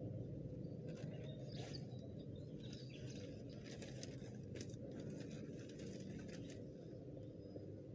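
Faint scattered bird chirps over a steady low background rumble, the chirps bunched in the middle and a short one near the end.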